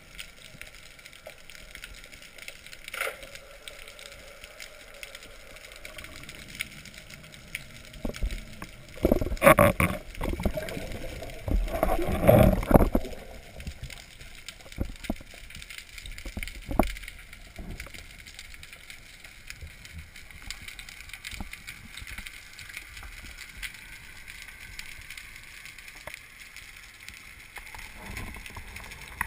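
Underwater noise through a camera's waterproof housing as a spearfisher dives toward the bottom. A steady low hiss is broken by a few sharp clicks and by two louder rushes of water, about ten and twelve seconds in.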